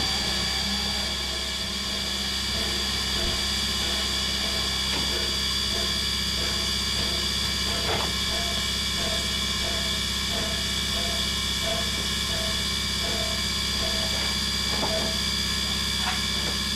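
1910 Swedish-built E2 steam locomotive standing with steam up: a steady hiss carrying a constant high tone, over a low hum, with a few faint knocks.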